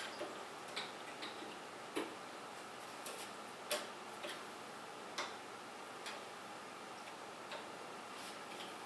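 Light, irregularly spaced clicks and taps of small hard parts and tools being handled during PC assembly, about a dozen with uneven gaps, the loudest around two and four seconds in.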